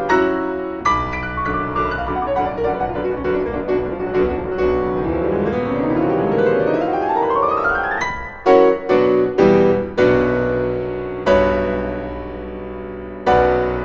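Piano music: a quick run of notes climbing in pitch, then a handful of loud struck chords that ring out.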